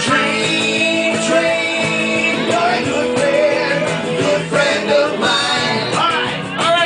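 Upbeat live band music with guitar, the instrumental part of a train song.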